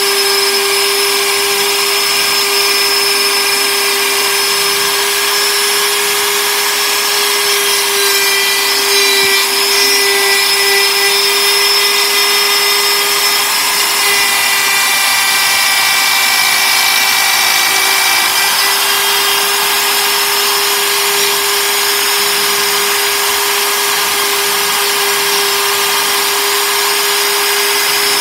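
Compact router spindle on an MPCNC running with a steady, unchanging whine as its bit mills a pocket in hardwood, with the hiss of cutting under it.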